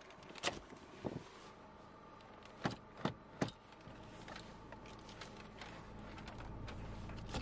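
A few sharp clicks and knocks from the tilt-adjustable steering column of a Mahindra Scorpio S11 as its adjust lever is released and the wheel is moved and locked, three of them close together near the middle.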